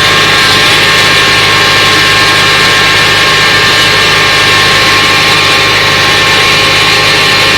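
Claas Arion tractor and Grimme SE 75-30 potato harvester running steadily at work, engine and harvester machinery at a constant pace with a steady whine on top.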